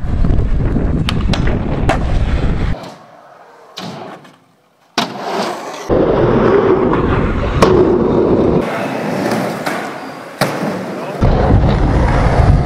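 Skateboard wheels rolling on skatepark ramps, with sharp clacks of board pops and landings scattered through, and wind rumbling on the microphone in places. The sound changes abruptly several times.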